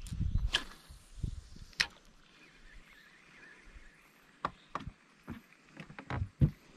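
A low rustle, then a scattered series of sharp knocks and clicks, about a dozen, the loudest one near the end: handling knocks on a small boat.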